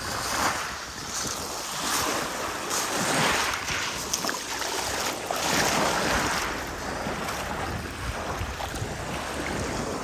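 Small Black Sea waves lapping and washing over a pebble shore, surging and easing every second or two.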